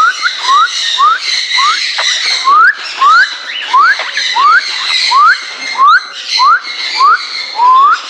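A short rising whistle repeated about twice a second, over steady chatter from many small parrots.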